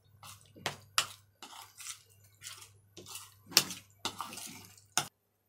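A metal spoon stirring wet, marinated chicken pieces and cornflour in a plastic bowl: irregular clinks and scrapes against the bowl. It cuts off suddenly near the end.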